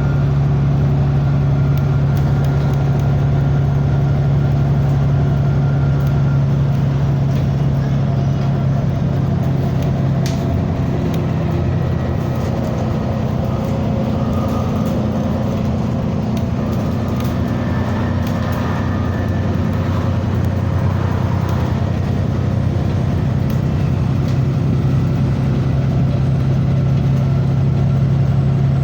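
Vehicle engine running steadily with a strong low hum. Its note changes for a while around the middle, then settles back.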